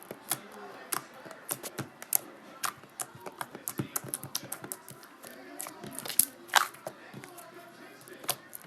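Slime being squeezed and poked by hand, making irregular sharp clicks and pops several times a second as air pockets burst.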